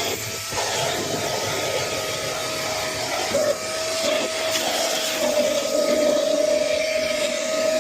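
Milwaukee M18 Fuel 6-gallon cordless wet/dry vacuum running steadily: a constant motor whine over rushing air, with a few clicks just at the start.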